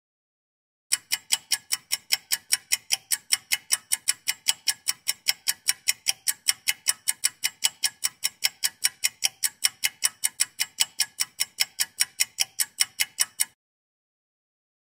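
Ticking clock sound effect: sharp, evenly spaced ticks at about five a second. It starts about a second in and cuts off abruptly shortly before the end, with dead silence around it.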